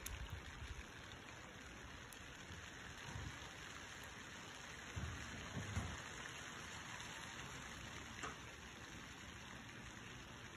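Light rain falling on a swimming pool and its stone deck: a faint, even hiss of drops. A few brief low rumbles come about halfway through.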